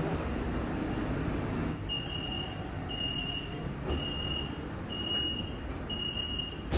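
Metro train door-closing warning beeping: a high, steady beep about half a second long, repeating once a second, five times, over the low steady hum of the train car. A thump near the end.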